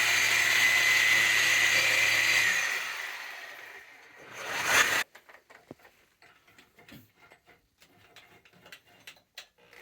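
Power tool cutting through the old boiler pipe: it runs steadily with a high whine, trails off after about two and a half seconds, runs again briefly about four seconds in and stops abruptly, followed by only a few faint clicks.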